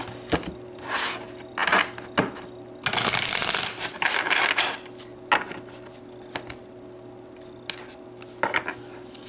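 A deck of oracle cards being shuffled by hand: a riffle shuffle rattles through for under a second about three seconds in, with scattered short taps and slides of the cards before and after as the deck is split and handled.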